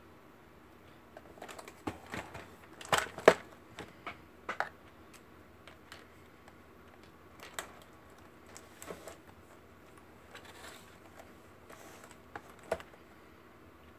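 Cardboard and plastic blister packaging being handled: scattered clicks, taps and crinkles, the loudest cluster about three seconds in.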